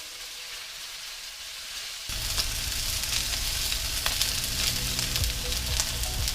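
Chicken tenderloin frying in a pan, a steady sizzle that jumps louder about two seconds in, with a few light clicks.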